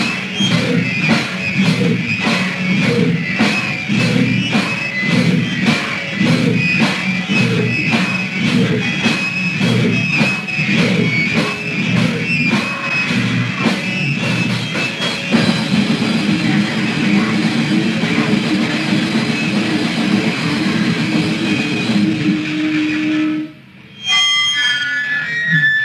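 Raw, lo-fi hardcore punk band recording: drum kit, distorted electric guitar and bass playing a fast, driving beat. About fifteen seconds in the drumming stops and a chord is left ringing; near the end the sound cuts out briefly, a few single guitar notes are picked, and the band comes back in.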